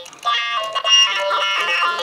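A FurReal interactive toy parrot singing its electronic tune, a melody of quick, changing notes.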